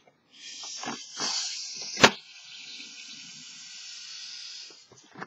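A person blowing hard into a large latex balloon by mouth: one long hiss of breath running into the balloon, with a sharp loud click about two seconds in.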